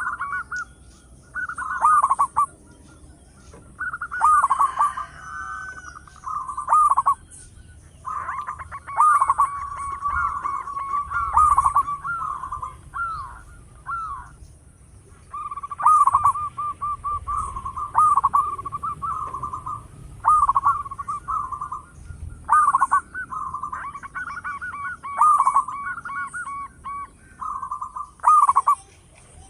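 Zebra dove (perkutut) cooing loudly: quick runs of staccato notes at about one pitch, repeated in bouts with short pauses between them.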